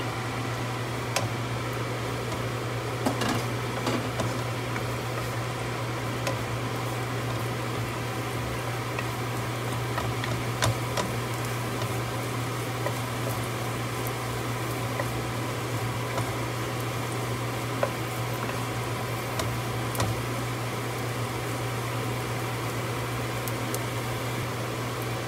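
Chopped garlic and onions sautéing in oil in a nonstick pan, a steady sizzle with occasional clicks as a wooden spatula stirs and taps the pan, over a constant low hum.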